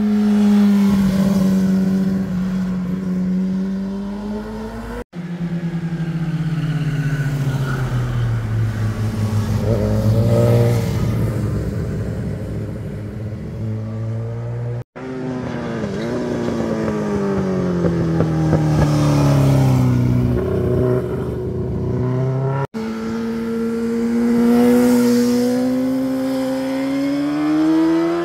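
Motorcycle engines passing through tight bends one after another, filmed from the roadside. Each engine's pitch drops as the bike slows into the bend and climbs again as it accelerates out, with sudden cuts between bikes three times.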